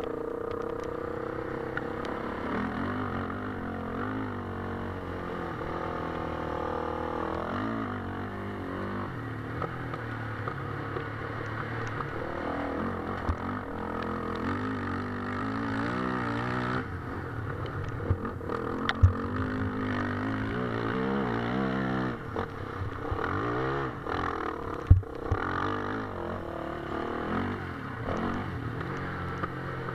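Off-road motorcycle engine being ridden hard, its pitch repeatedly rising and dropping as it revs and shifts, with knocks and rattles from the bike over rough ground. Two sharp knocks stand out, about two thirds of the way in and again near the end.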